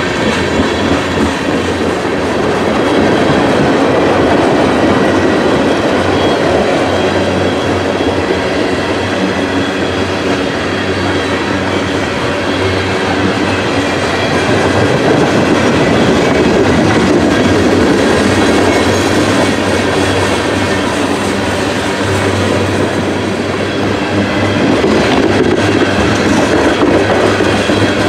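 Empty ethanol tank cars of a long freight train rolling past, their wheels clicking over the rail joints in a steady run, with a low hum underneath.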